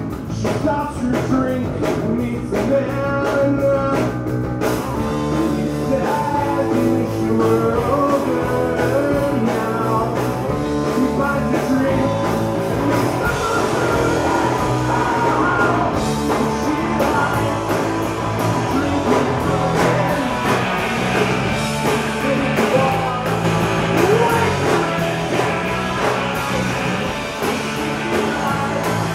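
Live rock band playing: a male lead singer singing into the microphone over electric guitars and drums, the cymbals coming in louder about five seconds in.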